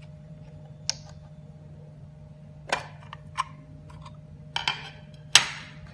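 Scattered clicks and knocks as the upper cover of a Hikway SD mobile DVR is lifted off, the sharpest knock near the end, over a steady low hum.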